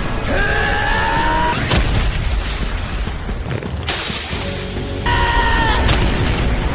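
Anime fight-scene audio over background music: a drawn-out yell, a sharp crash about a second and a half in, a heavier burst of impact noise around four seconds, and a second held yell about five seconds in.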